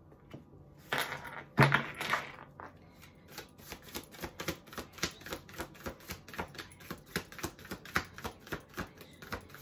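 A sharp knock with a short rustle about a second and a half in, then a steady run of light clicks, about three or four a second, like typing.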